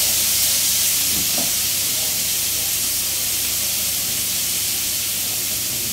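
Minced beef sizzling steadily in hot oil in a frying pan as it is stir-fried with a spatula.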